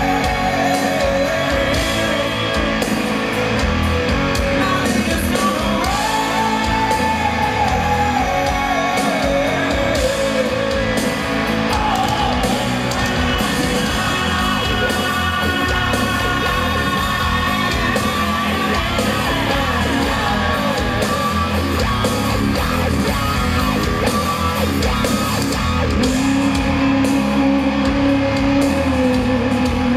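A live rock band plays in a concert hall: distorted electric guitars, bass and drums, with a sung lead vocal line.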